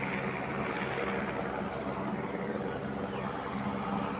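Helicopter flying overhead at a distance: a steady drone of rotor and engine with a low hum.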